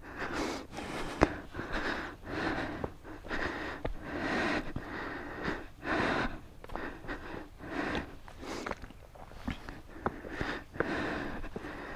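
A person breathing close to the microphone inside a motorcycle helmet, in irregular noisy breaths, while walking down a rocky path, with footsteps crunching loose stones and a few sharp clicks.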